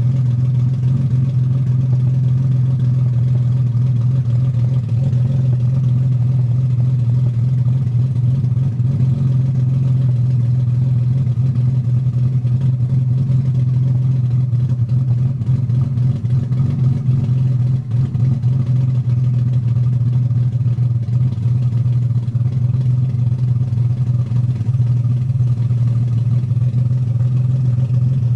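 BMW M50 non-VANOS inline-six engine, swapped into an E30 318i, idling steadily and roughly during warm-up. The stored fault codes show a bad crankshaft position sensor and a bad O2 sensor.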